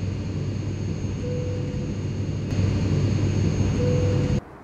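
Jet airliner engine noise: a steady low rumble with a thin high whine over it. It gets louder about two and a half seconds in, then cuts off suddenly near the end.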